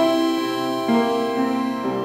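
Live acoustic music: a grand piano together with a sustained melody line, its notes changing about every half second to a second over a steady low drone.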